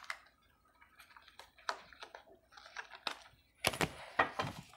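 Tarot cards being handled: scattered light clicks and soft paper rustles as cards are taken from the deck, with a louder flurry of clicks near the end.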